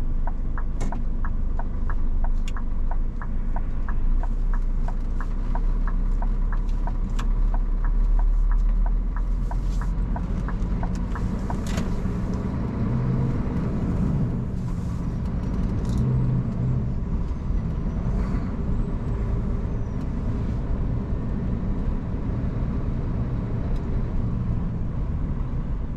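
Scania truck's diesel engine running with a low, steady rumble, heard from inside the cab while driving. For the first nine seconds or so the turn-signal relay ticks in an even rhythm, a few ticks a second, then stops as the turn is completed.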